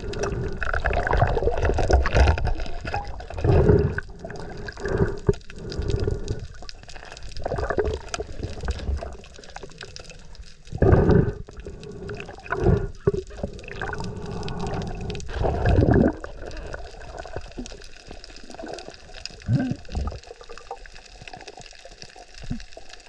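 Seawater sloshing and gurgling around a camera in the water, in irregular surges every second or two.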